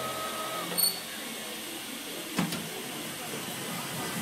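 CNC stone-cutting machine running with a steady hiss. A steady whine cuts off under a second in, followed by a short high beep and, about two and a half seconds in, a single sharp knock.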